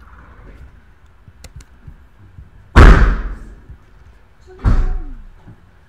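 Two loud thuds about two seconds apart, each fading out quickly, the first the louder.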